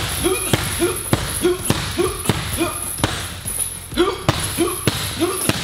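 Rapid strikes, kicks among them, landing one after another on a heavy punching bag held by a partner, about two thuds a second in an even rhythm. Each thud is met by a short grunt from the striker.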